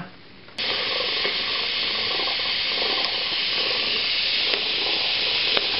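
Model steam boiler's safety valve lifting about half a second in and venting steam with a sudden, steady hiss. The boiler is at just over 40 psi, about the pressure the valve is meant to be set to.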